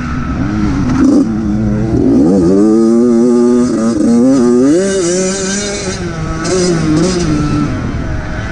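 Dirt bike engine heard from on board the bike, revving up and down with the throttle while riding a motocross lap; the pitch climbs sharply about two seconds in, then rises and falls again through the rest of the run.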